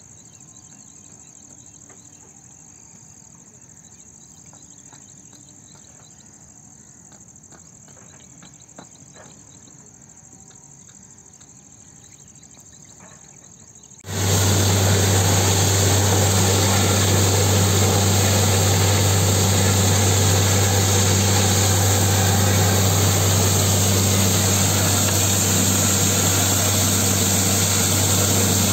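Crickets chirping faintly over a quiet field. About halfway there is a sudden switch to a loud borewell drilling rig running with a steady low engine hum, as water gushes up out of the bore: the borehole has struck water at about 360 feet.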